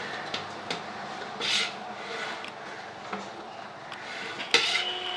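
A serving spoon scraping and scooping biryani rice in a large aluminium pot and pressing it into a cardboard takeaway box, with scattered clicks, a short rasping scrape about a second and a half in, and a sharp knock near the end.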